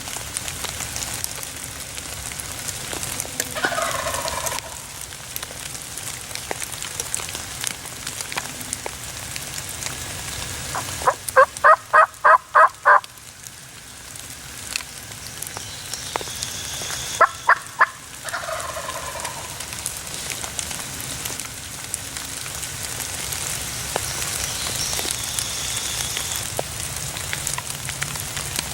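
Wild turkey gobbler gobbling twice, each gobble a falling, rattling call. Between them come a run of about seven sharp hen yelps and a shorter run of three, the loudest sounds here, with steady rain falling throughout.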